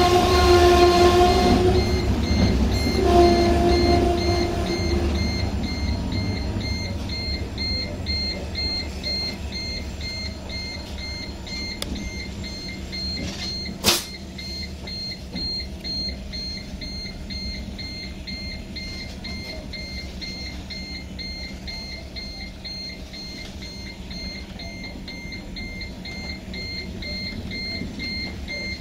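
Passenger train running, with a steady low rumble from the wheels and track; the horn sounds near the start, a longer blast then a shorter one about three seconds in. A fast, continuous high electronic beeping runs on under it, and there is one sharp knock about halfway through.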